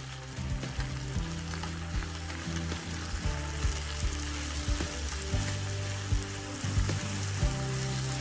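Sliced onion, diced peppers and garlic paste sizzling as they sauté in olive oil over high heat in an enamelled cast-iron pot, stirred with metal tongs that click against the pot now and then.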